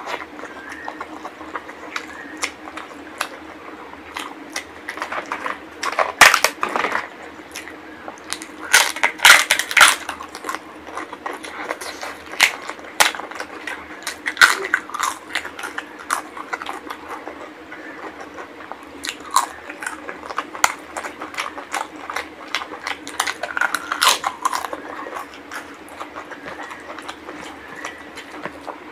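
Close-miked eating: wet chewing of hand-fed mouthfuls of rice and curry, broken by bursts of sharp crunching from bites of crisp papad, the loudest crunches about six and nine seconds in. A faint steady hum runs underneath.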